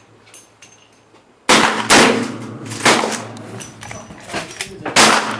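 Gunshots with a long reverberant tail: a loud shot about a second and a half in, two more soon after, and another loud shot near the end.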